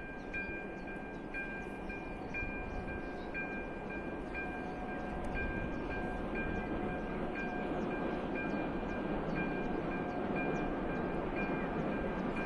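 Level-crossing warning bell ringing about once a second while the barriers are down, a bright two-tone chime. Underneath, the rumble of an approaching train slowly grows louder.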